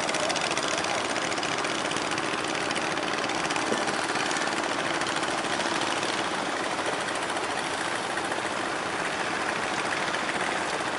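Fishing boat engine running steadily with a fast, even knock, under a hiss of wind and sea.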